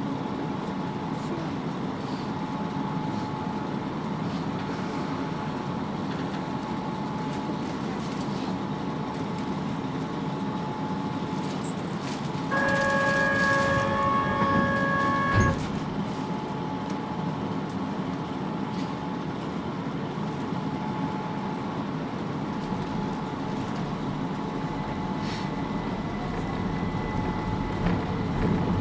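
Keihan 800 series train running, heard from inside the car: a steady rumble of wheels and motors on the track. About halfway through, a loud steady pitched tone sounds for about three seconds and ends with a sharp knock.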